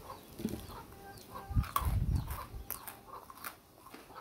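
Chickens clucking, short calls scattered throughout. A low rumble with thumps about one and a half to two and a half seconds in is the loudest part.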